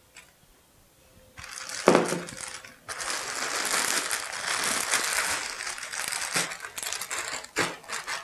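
Plastic zipper bag of sliced yellow squash and cornmeal crinkling steadily as it is shaken to coat the squash, after a knock about two seconds in.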